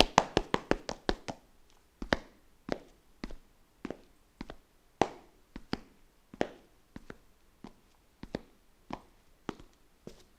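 Foley taps and knocks: a quick run of about six sharp taps a second in the first second or so, then slower, irregular single knocks, about one or two a second.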